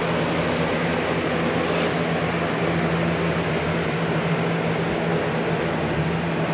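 Electric box fans running: a steady rush of air over a constant low motor hum.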